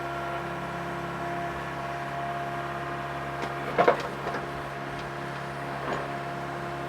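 Mini excavator's diesel engine running steadily, a steady hum with a couple of faint knocks and one short, loud sharp knock just before the four-second mark.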